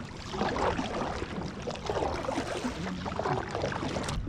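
Water sloshing and splashing around a kayak, with some wind on the microphone.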